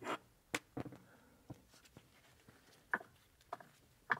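Triumph Spitfire differential's ring and pinion gears turned over by hand, giving faint, irregular clicks and knocks a few times. The gear mesh doesn't sound good, and the rebuilder suspects the backlash or tooth engagement.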